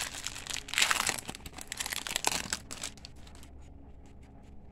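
A trading-card pack wrapper being torn open and crinkled by hand, a dense crackle loudest about a second in, then a few faint rustles as the cards come out.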